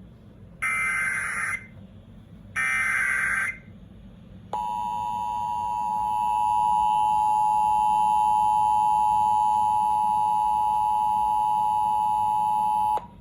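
NOAA Weather Radio alert signal: the last two of three raspy SAME digital header bursts, each about a second long, then the steady 1050 Hz warning alarm tone, held for about eight seconds. Together they announce a new warning, here a flash flood warning.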